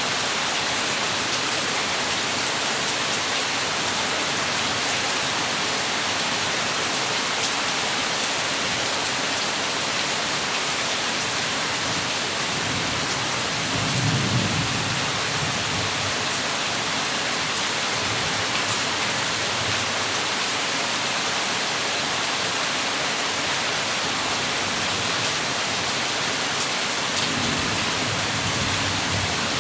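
Heavy rain falling steadily, a dense even hiss. Low rumbles of thunder swell about halfway through and again, more faintly, near the end.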